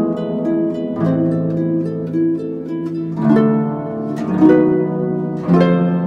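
Instrumental background music of plucked strings, harp-like, with new chords struck every second or two over held low notes.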